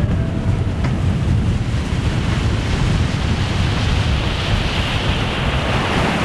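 Fishing boat running fast across a lake: wind buffeting the microphone over rushing water and spray from the hull, a loud, steady rumble with no clear engine note.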